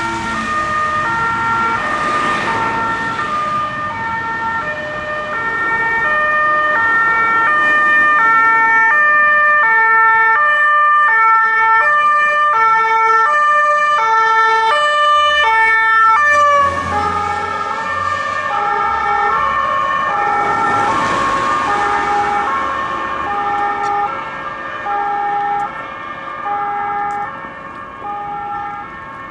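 Two-tone siren of a police Volkswagen Transporter van, alternating high and low notes, getting louder as the van approaches. About sixteen seconds in, the notes drop in pitch as it passes, and the siren then fades as the van drives away.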